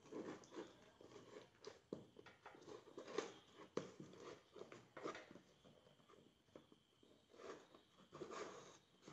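A wrapped cardboard box being handled and cut open with a small blade: faint, irregular scrapes, rustles and clicks of paper, tape and cardboard, the sharpest a little past three seconds in.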